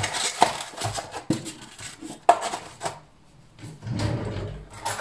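Kitchen handling noises: several sharp clicks and knocks about a second apart as an egg is taken from a plastic egg carton, then a brief lull and a stretch of quieter rummaging.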